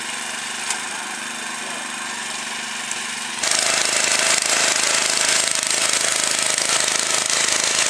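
Small Honda engine of a motor hoe / trench-digging machine running steadily, then suddenly louder and harsher about three and a half seconds in.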